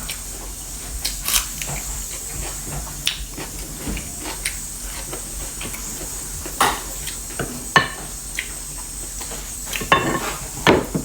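Close-up eating sounds: chewing with irregular clicks and scrapes against a plate. The loudest clusters come about two-thirds of the way through and near the end, over a steady high hiss.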